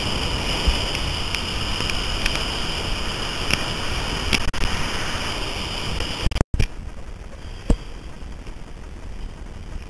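Steady rushing noise of breaking whitewater and wind on the microphone as the camera rides the wave, with scattered faint clicks. It cuts off abruptly about six and a half seconds in, leaving a quieter hiss of water and wind.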